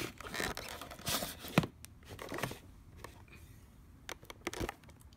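Handling noise from a camera being picked up and repositioned on its stand: rustling and scraping against the microphone, with a few sharp knocks, the loudest about one and a half seconds in.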